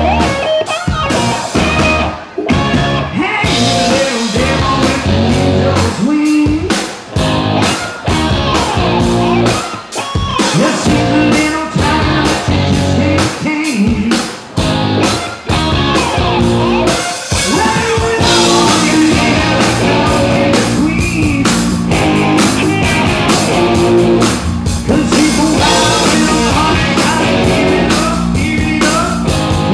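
Live rock band playing, with drum kit and guitar and a singing voice. Stop-start accented hits give way a little past halfway to a fuller, steady groove.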